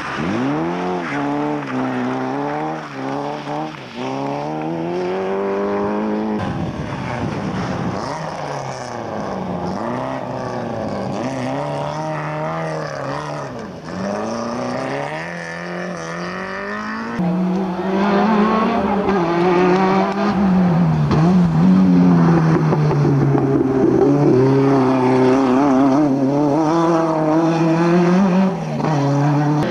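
Rally car engine revving hard, its pitch repeatedly climbing and dropping. About halfway through it gets louder and holds steadier at high revs.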